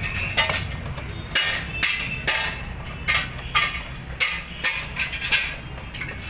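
Sharp metallic clicks and clinks, about two a second, from a 10 mm T-handle socket wrench turned on a motorcycle headlight visor's mounting bolt while it is tightened. A steady low hum runs underneath.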